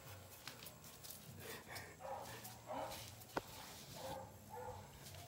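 Faint dog whimpering: a few short whines, with one sharp click a little past halfway.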